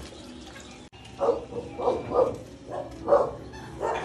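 A dog barking, about five short barks spread over a few seconds.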